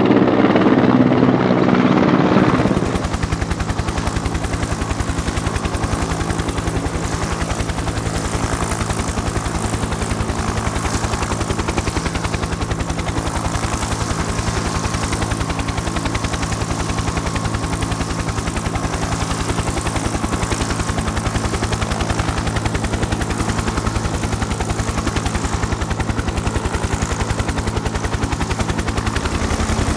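Helicopter sound effect: a fast, steady rotor chop over a constant engine hum, louder for the first couple of seconds and then holding steady.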